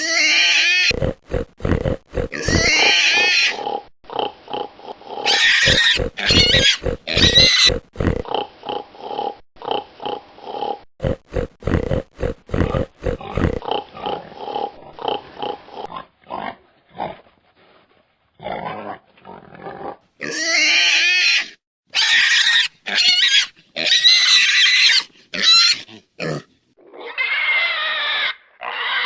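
Pigs squealing in loud, high-pitched, wavering cries, broken up by fast runs of short grunts. The squealing comes back strongly in the last third, after a brief lull.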